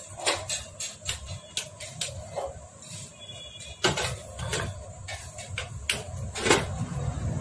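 Irregular metallic clicks and knocks from handling a Hero Splendor Plus motorcycle engine block on a workbench during hand assembly, the loudest about four seconds in and again near the end.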